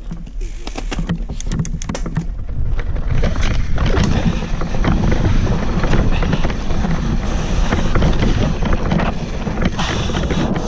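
Wind buffeting the microphone of a GoPro riding on a YT Capra 29 enduro mountain bike as it descends a dirt forest trail, with tyre noise on the dirt and sharp clicks and rattles from the bike. The rush grows louder about three seconds in as the speed picks up.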